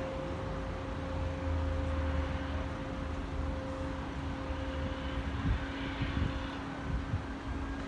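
Steady mechanical engine hum holding two even tones, with a deeper low rumble that swells for a few seconds about a second in.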